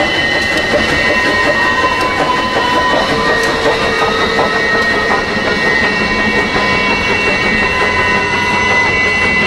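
Great Smoky Mountains Railroad passenger coaches rolling steadily past on the track, with a continuous rumble of wheels on rail. Several steady high-pitched squeals from the wheels run throughout, and shorter squeals come and go.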